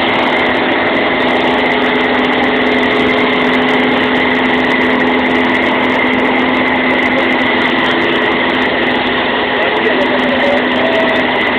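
Light aircraft's piston engine and propeller heard inside the cabin, a steady drone with an even hum and a high whine over it, shortly after takeoff.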